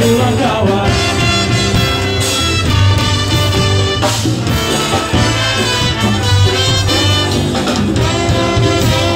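Ska band playing live: a brass section over electric guitars, bass and drums, in a passage with no lyrics sung.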